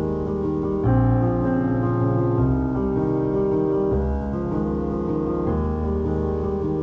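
Background music with sustained chords that change every second or two.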